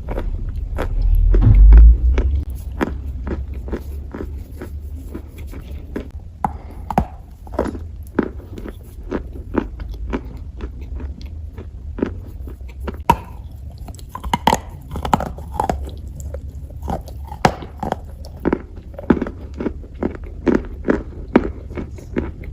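Close-miked biting and chewing of dry clay: irregular sharp crunches, several a second, over a steady low rumble. A loud low thump comes about a second and a half in.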